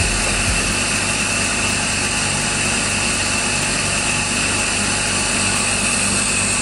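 Air compressor of a Macy-Pan soft hyperbaric chamber running steadily, with a low hum and a high, hissing whine, holding the chamber at about 1.3 atmospheres.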